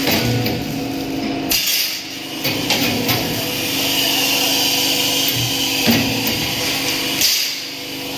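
Metalworking workshop noise: hammer strikes and clanking of tools over a steady machine hum, with the sound changing abruptly twice.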